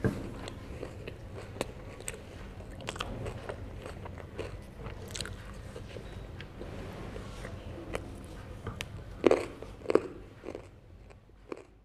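Herring being bitten and chewed close to the microphone, with many small wet clicks and two louder bites about nine and ten seconds in, then fading out.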